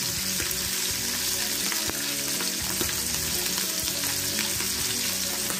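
Small chapila fish sizzling steadily as they shallow-fry in hot oil in a frying pan, with a few light taps and scrapes of a metal slotted spatula moving among them.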